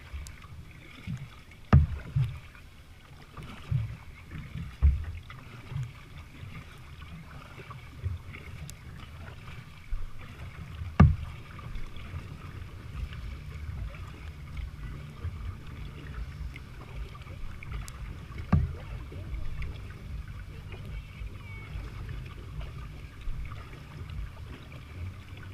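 Water sloshing against the plastic hull of a sit-on-top kayak under way: a steady low rumble with scattered sharp knocks on the hull, most in the first dozen seconds and the loudest about eleven seconds in.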